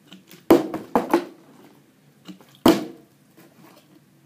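Plastic water bottle flipped onto a cardboard cereal box, landing with sharp knocks: one about half a second in, two more close together about a second in, and the loudest about two and a half seconds in.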